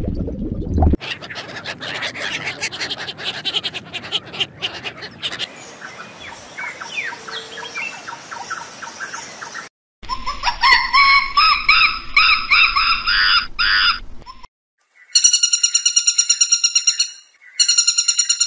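Bird calls in separate short clips: dense chirping and twittering, then a run of quick calls, then loud repeated whistled notes in two runs near the end.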